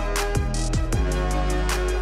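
Background music with a steady beat: deep drum hits that fall in pitch, ticking cymbals and held synth chords.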